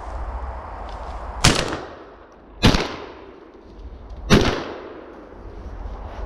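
Three shotgun shots, about a second and a half apart, each a sharp crack that dies away quickly.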